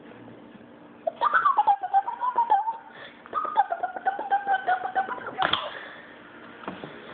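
A child's high-pitched wordless voice squealing and giggling, in two long stretches starting about a second in, with a louder outburst near the end.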